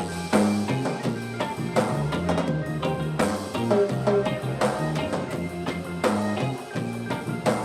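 Live reggae band playing an instrumental passage: bass line, drum kit and guitar, with no singing.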